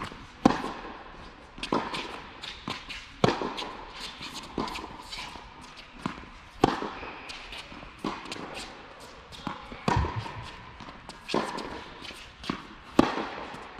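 Tennis rally on an indoor hard court: sharp racket-on-ball hits and ball bounces, about one every one to one and a half seconds, each echoing in the hall.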